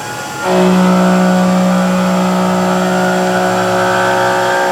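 CNC milling machine's end mill biting into a block of aluminium about half a second in, then cutting with a steady pitched whine with overtones.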